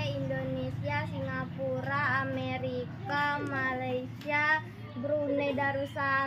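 A child singing in a high voice, held notes that slide up and down in pitch, over a steady low hum.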